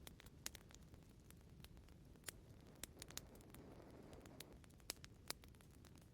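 Wood fire crackling in a fireplace, quiet: irregular sharp pops and snaps over a low rumble of the flames, with a soft whoosh swelling for about a second and a half near the middle.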